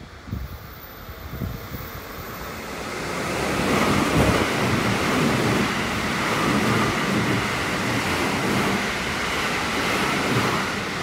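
JR Special Rapid electric train running through a station at speed: the rushing noise of wheels on rail and displaced air builds over the first few seconds and then holds steady while the carriages pass, with a faint steady high whine above it.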